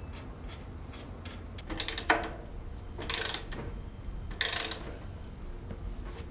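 Socket ratchet wrench clicking in three short bursts of rapid clicks, after a few faint ticks, as bolts are run in on a moped engine being fitted to its frame.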